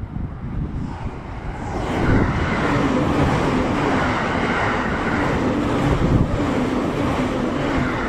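E657 series electric train passing through a station at about 120 km/h without stopping. A rush of wind and wheel-on-rail noise builds about a second in, then holds loud and steady with a steady hum as the cars sweep by.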